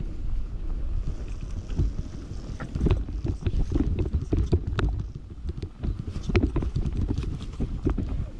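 Mountain bike, a Commencal Meta Power SX e-bike, descending a dirt singletrack: a constant low rumble of tyres on the trail and wind on the microphone, broken by frequent sharp rattles and knocks from the bike jolting over bumps.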